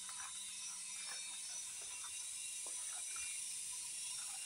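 Steady high-pitched chorus of insects such as cicadas or crickets, a shrill continuous buzz.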